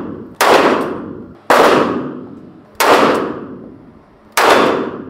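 Semi-automatic pistol fired four times, single shots a second to a second and a half apart, each shot ringing on in the echo of an indoor shooting range.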